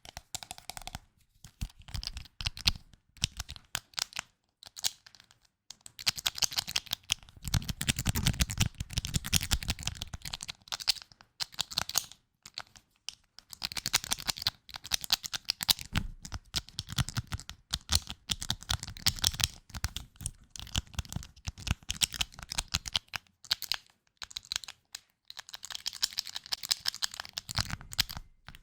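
Close-miked ASMR tapping: rapid crisp clicking strokes in runs of a few seconds, broken by brief pauses.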